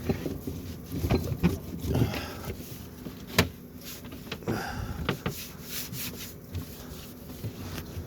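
Damp cloth rubbing and scrubbing at a glass fridge shelf to lift dried sauce stains, with irregular strokes, a brief squeak, and a few sharp knocks, the loudest about three and a half seconds in.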